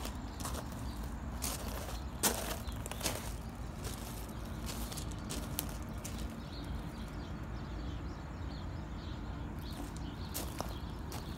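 Footsteps crunching on gravel, with a few sharper crunches or clicks, the loudest a little over two seconds in, over a low steady rumble.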